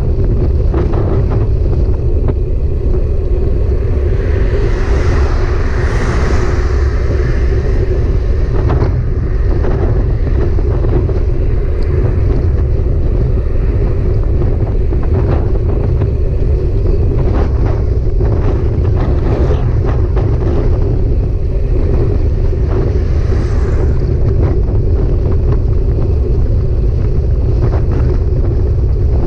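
Riding noise from a moving bike: heavy wind buffeting on the microphone makes a loud, steady low rumble, with frequent small rattles and knocks from the road surface. A hiss swells for a couple of seconds about five seconds in.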